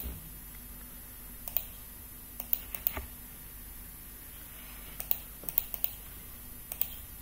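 Scattered clicks of a computer keyboard and mouse, coming in small clusters of two to four.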